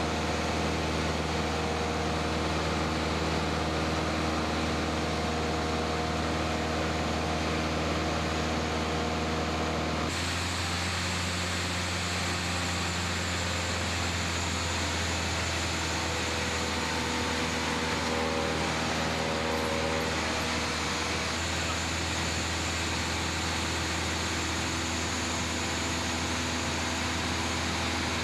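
Cabin drone of a single-engine Cessna's piston engine and propeller in cruise flight: a steady hum with a pitched, many-toned note. The note shifts abruptly about ten seconds in and again slightly about twenty seconds in.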